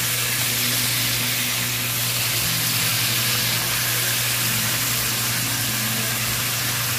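Sirloin steaks searing in hot oil in a cast-iron pan, a steady sizzle, with a steady low hum beneath it.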